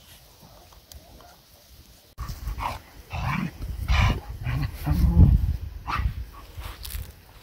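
A dog barking repeatedly, in a run of separate barks that starts about two seconds in.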